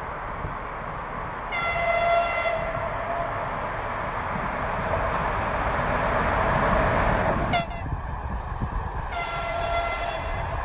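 TEP70BS diesel-electric locomotive sounding a short, steady horn blast about one and a half seconds in, then the noise of its passenger coaches rolling past, growing louder until it cuts off suddenly. About nine seconds in comes a second short horn blast of the same pitch.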